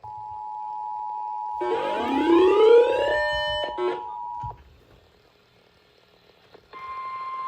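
Emergency Alert System attention signal: a steady two-tone alarm chord for about four and a half seconds, with a buzzy rising tone sweeping up over it from about a second and a half in and then holding. After a short pause, a single steady alert tone begins near the end.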